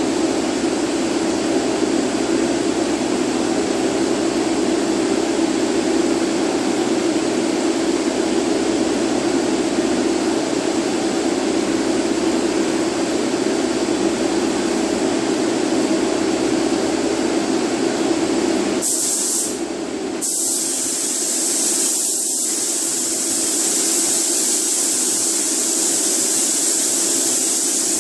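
Air-fed paint spray gun laying a blend coat of black base coat: a steady rush of air with a strong low hum. About two-thirds of the way in the sound changes abruptly, with a brief break before the low hum drops away and a loud high hiss takes over.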